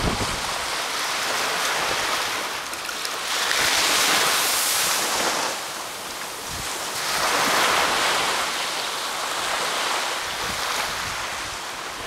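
Small ocean waves washing up onto a sand beach, their foam hissing and swelling twice, at about four and eight seconds in.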